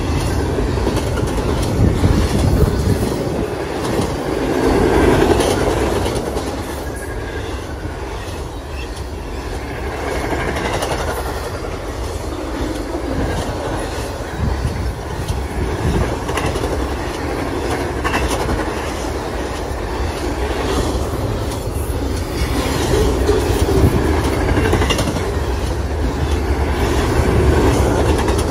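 Double-stack intermodal freight cars of a BNSF Z train passing close by at speed over a bridge: a steady rumble of steel wheels on rail with repeated clickety-clack as the wheels cross the joints, swelling louder twice.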